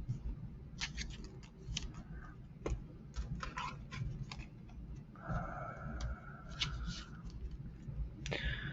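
Trading cards and plastic card holders being handled on a table: faint scattered clicks, taps and rustles, with a slide-and-scrape of about two seconds starting around five seconds in.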